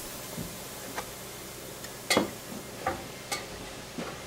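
A few scattered light clicks and knocks over a low steady hum, the loudest about two seconds in.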